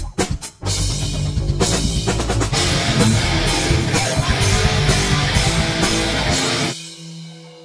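Rock intro jingle with electric guitar and drum kit. It stops abruptly about a second before the end, and a quiet, steady held chord takes over.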